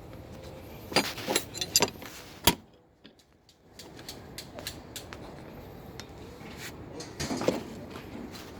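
Sharp metal clinks and knocks, like hand tools striking metal parts: a cluster in the first two and a half seconds, the loudest about two and a half seconds in, and another cluster near the end.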